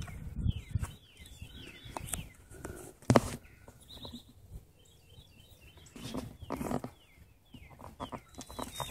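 Burlap sack being untied and opened by hand, its coarse cloth rustling in short spells, with one sharp click about three seconds in. Birds call with short downward-sliding chirps.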